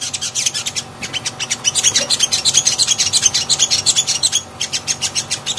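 A sogon (sogok ontong) singing a fast, busy chirping song of rapid high notes, several a second, broken by short pauses about a second in and again near the end.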